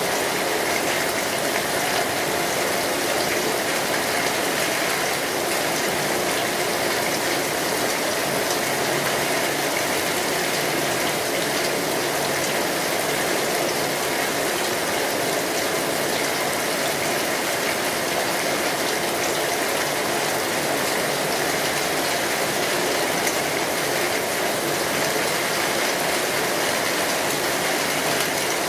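Steady rain falling on a street: an even, unbroken rushing noise with no single drops or strikes standing out.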